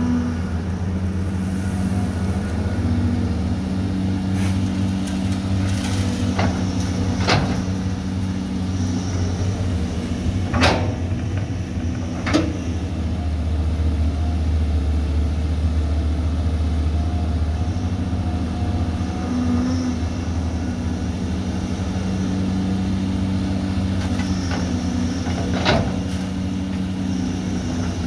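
CAT hydraulic excavator's diesel engine running steadily under load while it digs and swings soil, working harder for a few seconds midway. About half a dozen sharp knocks from the bucket and its linkage.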